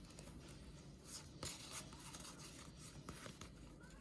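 Faint rustling and light scraping of trading cards and pack wrapper being handled, with a few brief strokes.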